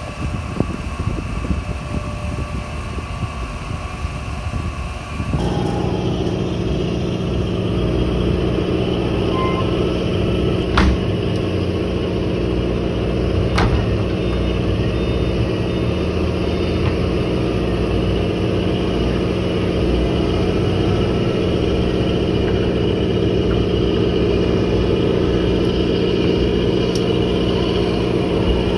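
An engine runs steadily with a low, even drone, which gets louder and steadier about five seconds in. Two sharp knocks come about three seconds apart near the middle.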